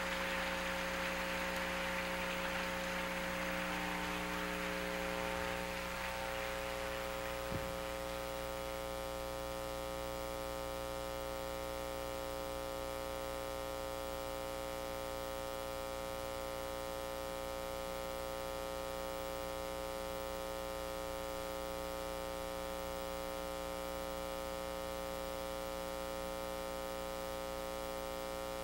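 Steady electrical mains hum, a buzz with many overtones, from the sound system or recording chain. A hiss fades away over the first six seconds, and a single click comes about seven and a half seconds in.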